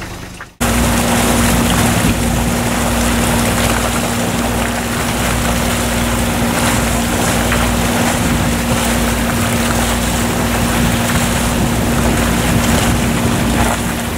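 Newport 30 sailboat's inboard engine running steadily under way, a constant hum over a low rumble, with wind and water noise around it. It starts abruptly about half a second in.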